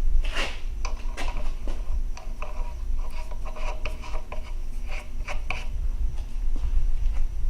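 Small machined metal parts, wheel nuts and spacers for a tool and cutter grinder, being handled and set down, giving a run of light clinks and short metallic rings with some rubbing, over a steady low hum.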